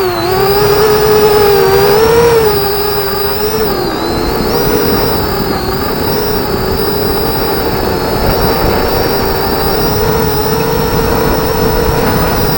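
FPV racing miniquad's electric motors and propellers whining at a fairly steady throttle, the pitch wavering slightly up and down, over a rough rumble of wind on the microphone.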